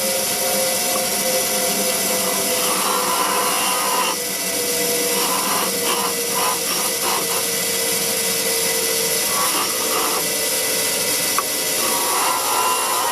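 Electric grinder running with a steady whine while a forged railroad-spike knife is pressed against its fine wheel in four spells of a second or two, grinding burrs off the twisted handle.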